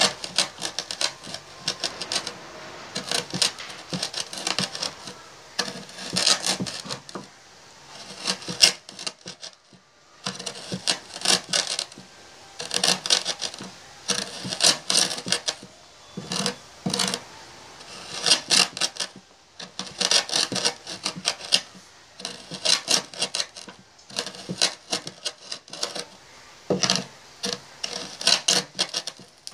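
An iron hammer head grinding and scraping a heap of sugar and potassium permanganate crystals against a hard tabletop, in bursts of rapid rubbing strokes with short pauses, to set the mixture alight by friction.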